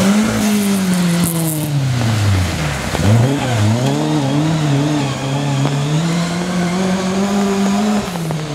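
Mk2 Ford Escort rally car's engine at high revs on a gravel stage. The note falls steeply about two and a half seconds in, then climbs again with several quick rises and dips as the car accelerates away.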